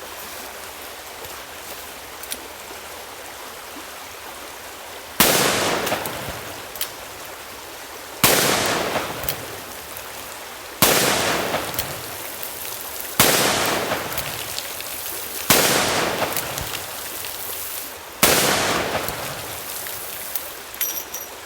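Six shots from a Ruger Redhawk .44 Magnum revolver with a 4-inch barrel, fired one at a time about two and a half seconds apart, each crack followed by an echo that dies away over a second or two. A steady hiss runs under them.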